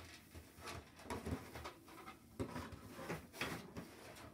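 LEGO minifigures and plastic bricks being handled and set down on a tabletop: a scattering of light clicks and taps.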